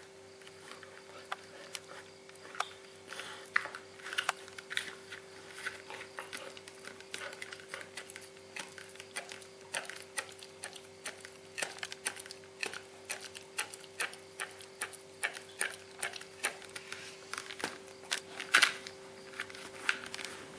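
Siberian husky puppy gnawing a rawhide bone: irregular crunching and clicking of teeth on the rawhide, a few per second, with one louder crack near the end. A steady hum runs underneath.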